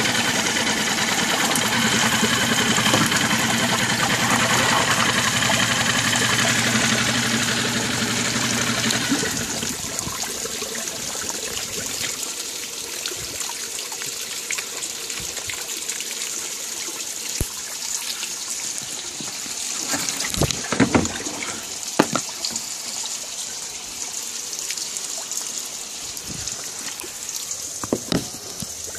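2002 Nissan 5 hp four-stroke outboard running steadily in a water test tank, then shutting off about nine seconds in. After that, water trickles and sloshes in the tank, with a few knocks.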